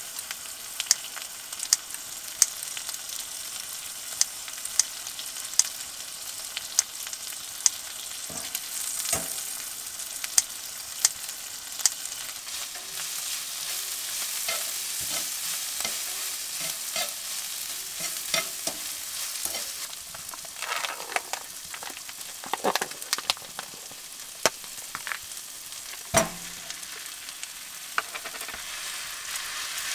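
Pork belly and kimchi sizzling in a steel frying pan on a wood stove, with sharp clicks about every second as kitchen scissors snip the meat in the first half. Later a wooden spatula stirs and scrapes the pan.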